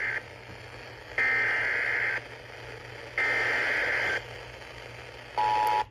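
Emergency Alert System SAME header received over the radio: data-tone bursts about a second long, repeating with one-second gaps over a steady static hiss. About five seconds in, the two-tone EAS attention signal begins.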